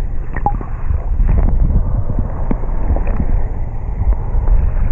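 Muffled underwater water noise picked up by a submerged action camera: a steady low rumble of moving water against the housing, with a few faint clicks and ticks scattered through it.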